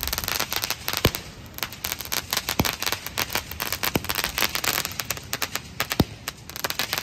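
Multi-shot fireworks cake (a box of tubes) firing: a dense run of crackling pops, with a louder report every second or two as shots launch.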